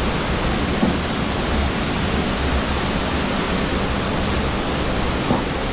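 Steady rush of flowing water in a cave, with two faint knocks, one about a second in and one near the end.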